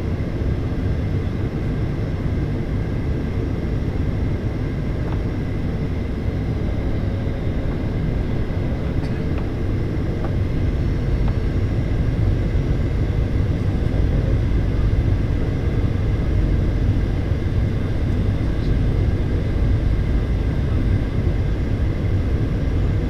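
Cabin noise inside a Boeing 737-800 on approach: a steady rush of airflow and engine noise from the CFM56-7B turbofans, with faint steady whining tones, growing a little louder about halfway through.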